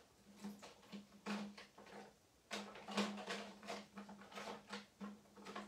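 Plastic Distress ink pad cases clicking and knocking together in irregular clusters as they are rummaged through in search of a colour.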